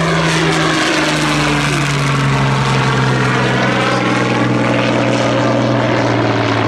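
Spitfire LF Mk.Vb's Rolls-Royce Merlin V12 engine and propeller droning loudly as the aircraft passes close overhead, the pitch dropping about a second in as it goes by, then holding steady as it draws away.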